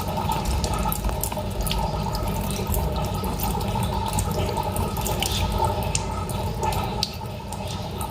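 Tap water running into a sink, splashing over a shell-less egg being rubbed and washed by hand, with small irregular splashes and drips over the steady flow.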